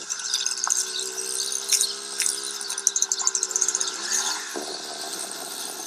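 Small motor of a moped-type ice-cream tricycle running as it rolls past, a steady whining drone whose pitch dips briefly about four seconds in.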